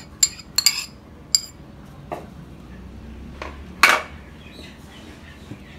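A small ceramic dish clinks against a ceramic mixing bowl three times in the first second and a half. Then a metal spoon knocks against the bowl a few times, loudest about four seconds in.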